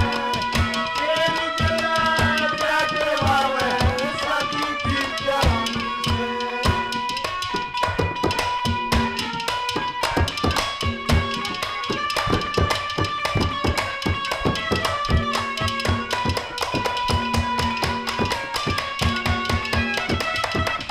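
Instrumental interlude of Haryanvi ragini folk music: a harmonium holds sustained notes and plays a melody over fast hand-drumming on a clay pot and hand drums, struck several times a second.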